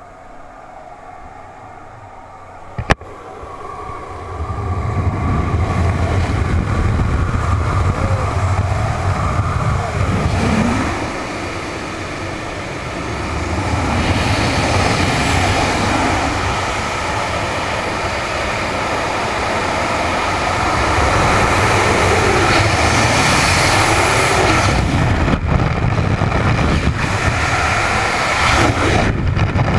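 Skydiving freefall wind noise: after a sharp click about three seconds in, a loud rush of wind buffeting a helmet-mounted camera builds over a second or two and stays loud, easing briefly a little past ten seconds.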